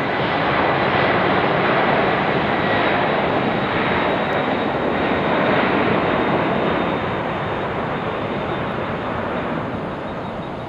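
Jet airliner's engines passing: a loud, even roar with a thin, steady high whine, easing off over the last few seconds.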